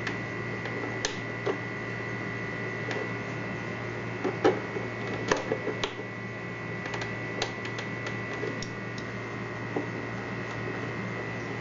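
Scattered light clicks and taps of the steam iron's small parts and tools being handled during repair, over a steady hum with a thin high whine.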